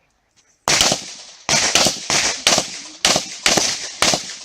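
Rapid handgun fire on an IPSC stage: after a brief pause, about ten sharp pistol shots, many of them fired in quick pairs (double taps).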